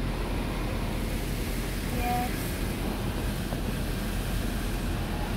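Steady rushing noise of an automatic car wash's machinery, heard muffled from inside the car, with a brief short tone about two seconds in.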